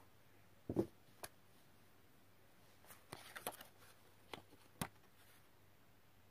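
Faint handling of paper card and twisted cord on a cloth-covered table: a soft thump about a second in, then scattered light clicks and paper rustling.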